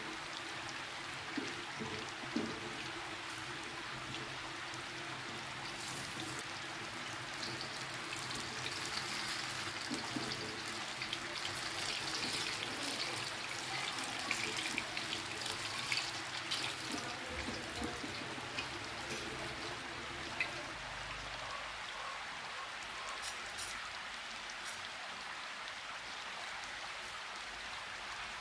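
Pisang molen deep-frying in a steel wok: hot oil sizzling steadily, with scattered clicks of a spatula and tongs against the pan.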